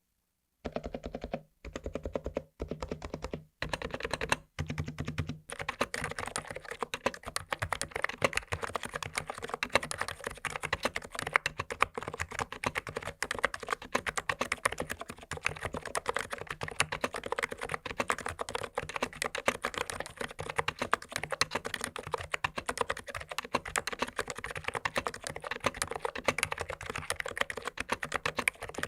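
ABKO KN20C full-size keyboard with Noppoo electrostatic capacitive 45 g switches being typed on. The keystrokes come in a few short runs with brief gaps over the first five seconds, then turn into continuous fast typing.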